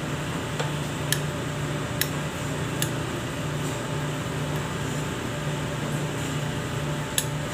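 A steady low mechanical hum, with a few light clicks of a metal spoon against a glass jar as yeast is spooned into a steel mixing bowl.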